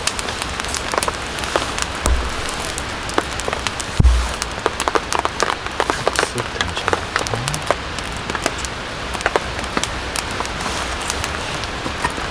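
Steady rain, with many individual drops striking sharply and irregularly. A low thump about four seconds in, and a softer one about two seconds in.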